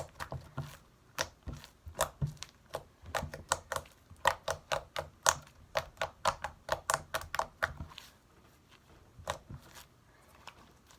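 Homemade glossy slime being squished and stretched by hand, giving a quick series of wet clicks and pops, two to four a second, for about eight seconds; then it mostly stops, with one more click later.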